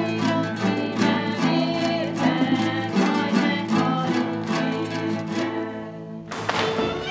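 Folk song sung by women to plucked lutes, played with a fast, even picking rhythm. About six seconds in, it cuts abruptly to different music.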